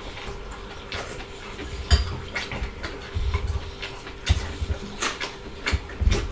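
Close-miked chewing and crunching of raw vegetable salad and fried pork ribs, heard as irregular short crunches and clicks, with occasional light clinks of cutlery and plates.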